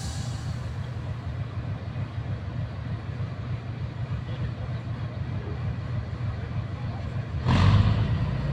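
TU2 narrow-gauge diesel locomotive's V12 diesel idling with a steady low throb. About seven and a half seconds in the engine revs up sharply and stays louder.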